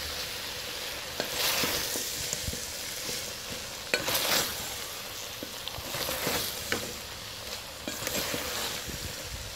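Wooden spoon stirring macaroni through a sizzling, oily metal pot of chicken and vegetables over the flame. Scraping sweeps come every second or two over a steady sizzle, with a few light knocks of the spoon against the pot.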